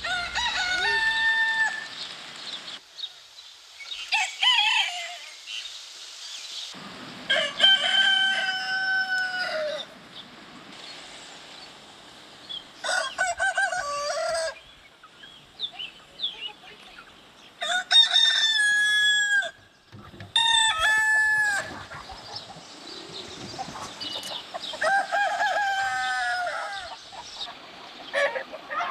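Rooster crowing again and again: about seven cock-a-doodle-doo crows, each a second or two long, with short pauses between them.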